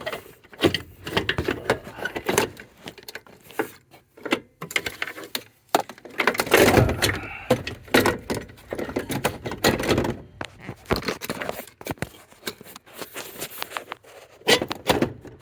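Irregular clicks, knocks and rustling of hands and a camera handling parts at a van's steering column, loudest about six to eight seconds in.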